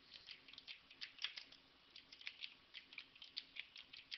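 Faint typing on a computer keyboard: uneven keystroke clicks, about six a second.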